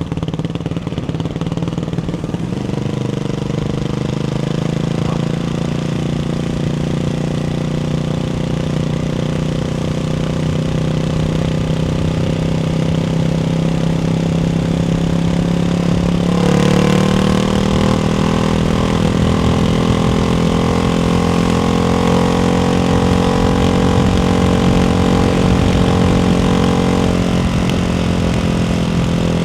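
Ducati Hypermotard 698's single-cylinder engine running through a baffled Termignoni exhaust, held at a steady rpm, then stepping up to a higher held rpm a little past halfway.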